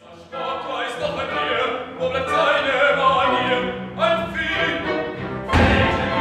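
Live opera music from a small chamber orchestra, with strings and singing voices. A heavy low thump sounds near the end.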